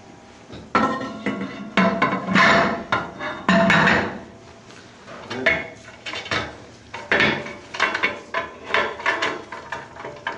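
Metal parts of a Quadro F10 fine-grind mill knocking and clanking together as the impeller, screen and housing are fitted by hand. Irregular sharp knocks and scrapes with brief metallic ringing, heaviest in the first few seconds and again past the middle.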